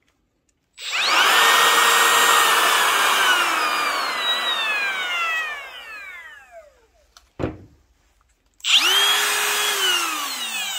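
A Makita 18V cordless trimmer (compact router) is switched on with a high whine, runs steady for a few seconds, then is switched off and winds down for about three seconds. A sharp click follows. Then a Milwaukee M18 FUEL trimmer (M18 FTR) starts with a similar whine and begins to wind down near the end.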